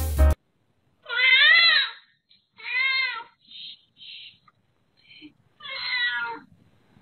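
Cat meowing in its sleep: three drawn-out cries, each rising and then falling in pitch, with a few short, softer sounds between them. The cat is having a nightmare.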